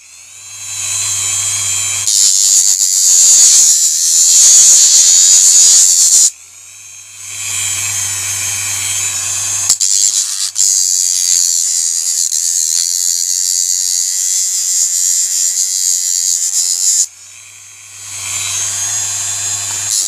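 Small handheld rotary tool spinning a small disc at high speed with a steady high whine. It is switched on three times: it stops about six seconds in, starts again a second later, stops again near seventeen seconds and starts once more.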